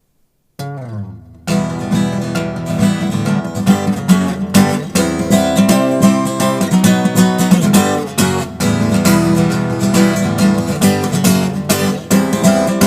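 Guitar playing the song's intro. A single chord rings and fades about half a second in, then steady rhythmic strumming starts about a second and a half in.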